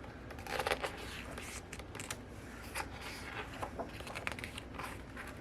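Pages of a thick photobook being turned and handled: repeated short paper swishes and rustles, the loudest about half a second in.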